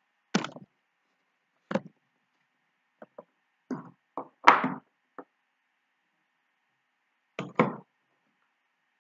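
A series of separate knocks and bumps of kitchen items being handled and set down on the counter, about ten in all, the loudest about halfway through.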